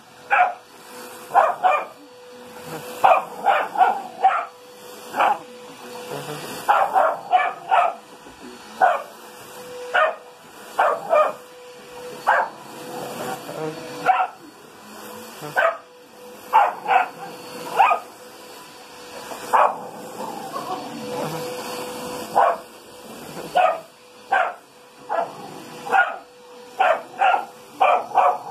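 Beagle–German Shepherd mix puppy barking over and over, in quick runs of two to four barks with short gaps between, over a faint steady hum.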